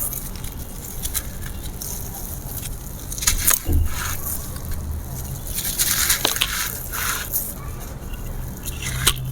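Dry grey concrete slab pieces being crumbled and crushed, with irregular crunching and crackling and a heavier crunch and low thud about three and a half seconds in.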